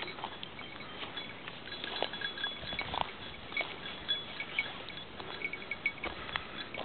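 Footsteps crunching through dry bracken and twigs, with a small bell tinkling now and then in short, high notes.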